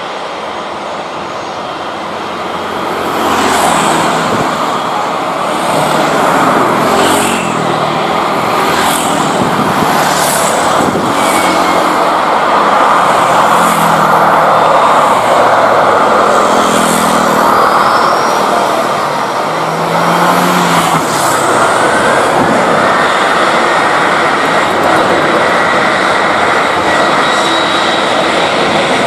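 Jet engines of a Boeing 737 airliner running at high power as it moves along the runway, a loud steady noise that swells about three seconds in. A thin whine rises in pitch about three-quarters of the way through.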